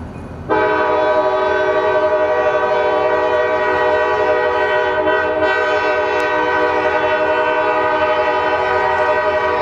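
Locomotive five-chime air horn, a Nathan K5LA, sounding one long steady chord that starts about half a second in and holds without a break.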